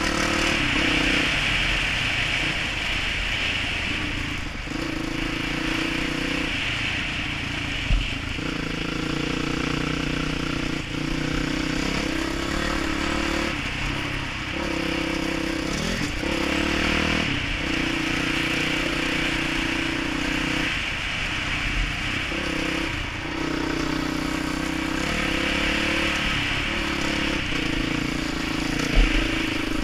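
Dirt bike engine running under way, its pitch repeatedly rising and dropping with throttle and gear changes. A few short, sharp knocks stand out above it.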